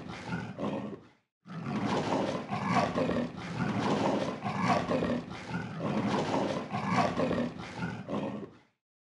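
Leopard calling: a long run of harsh, rough calls in repeated pulses, broken by a short pause about a second in.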